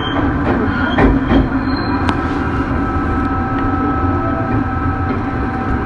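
Running sound inside a Tokyo Metro 03 series chopper-controlled subway motor car in motion: constant running noise with a set of steady whining tones, and a couple of sharp knocks from the wheels about a second in.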